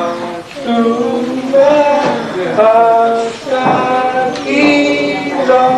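Singing: a melody of held notes that moves step by step in pitch.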